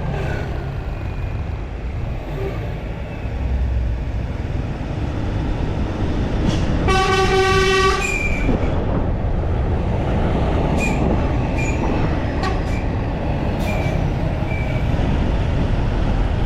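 Steady rumble of a moving vehicle and road traffic, with a single horn blast of about a second roughly seven seconds in.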